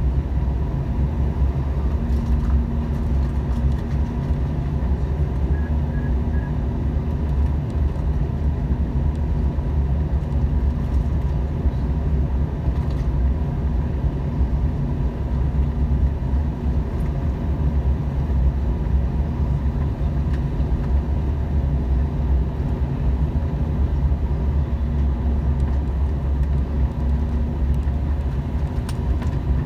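Steady cabin noise of a Bombardier CRJ900 regional jet on its approach: a deep roar of airflow and the rear-mounted turbofan engines, with a steady low hum running through it.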